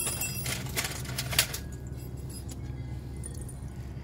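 A single metallic clink from the small stainless steel pan at the start, then a brief scraping rustle about a second in, over faint background music.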